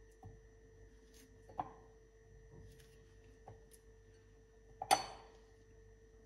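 Kitchen knife slicing a banana over a glass, with a few soft knocks and clicks and one sharper clink with a short ring about five seconds in. A faint steady hum runs underneath.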